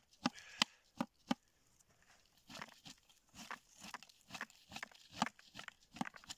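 Cranberries being gathered with a berry-picking scoop from low bog plants into a plastic bucket: a run of sharp clicks, then denser rustling and clicking from about two and a half seconds in.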